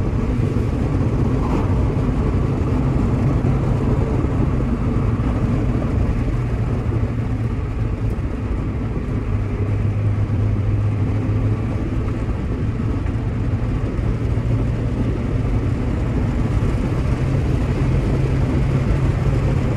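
Mazda MX-5 NB's four-cylinder engine and tyre noise heard from inside the cabin while driving: a steady drone whose engine note drops for a couple of seconds near the middle as the revs change, then comes back up.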